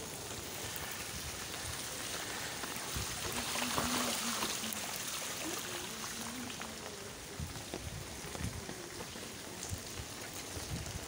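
Steady rain falling on an open umbrella, an even hiss that swells slightly about four seconds in.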